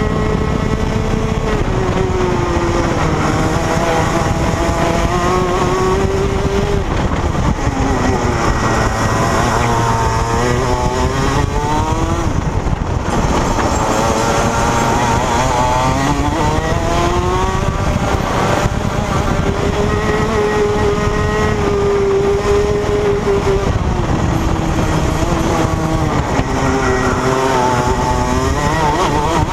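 Rotax Max 125 cc single-cylinder two-stroke kart engine heard onboard at racing speed, its pitch climbing as it accelerates and falling as it slows for corners, over and over.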